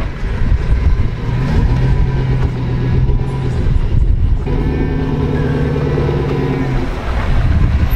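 Lifted Chevy pickup's engine running under load as the truck drives through deep floodwater, with a constant low rumble. The engine note is held steady for about two seconds, dips briefly near the middle, then holds again for another two seconds.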